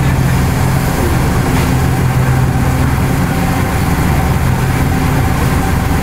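Car engine idling, a steady low hum heard from inside the car's cabin.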